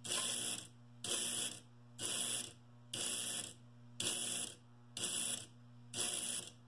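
Lionel operating milk car's solenoid buzzing in even on-off pulses about once a second, each pulse about half a second long, over a steady electrical hum from the layout. The car is working its milkman to push cans out.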